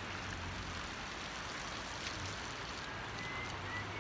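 Steady rush of river water flowing over rocks below the dam. A faint high whistle enters about three seconds in.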